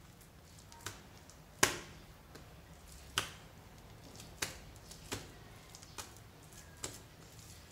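Fluffy slime being squeezed and pressed by hand, giving sharp little pops and clicks as it is squashed, about seven in all at irregular spacing, the loudest about one and a half seconds in.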